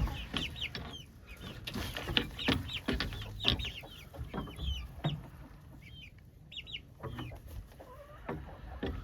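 A flock of chickens clucking and calling, with many short high-pitched calls overlapping throughout.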